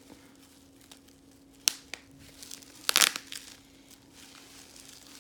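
Bubble wrap squeezed and crinkled by hand, with a sharp pop just under two seconds in, another soon after, and a louder crackling burst of pops about three seconds in.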